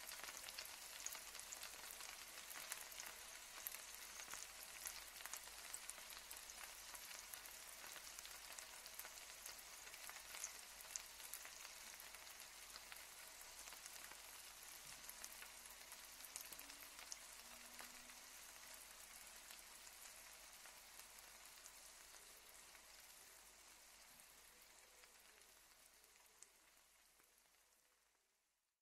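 Food frying: a dense, steady sizzle full of small crackling pops, which fades out over the last few seconds.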